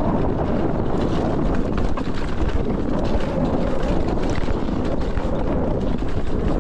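Wind rushing over the microphone as an electric mountain bike descends a trail, with tyre roar on the dirt and many short knocks and rattles from the bike over rough ground.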